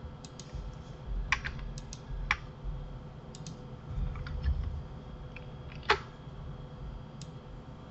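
Computer keyboard keys and mouse buttons clicking irregularly during work at a computer, with one sharper click about six seconds in.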